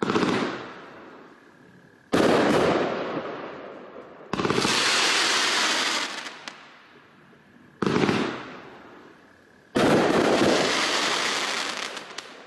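A 33-shot fan cake of comets firing in five volleys. Each starts as a sudden loud burst and fades over about two seconds in a crackling hiss.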